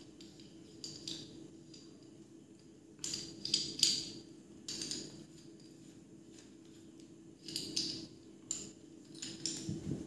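Metal clinking and scraping as a bolted contact wire splice is handled and fitted onto a piece of copper contact wire. The clinks come in several short bunches, loudest about three to four seconds in, over a steady low hum.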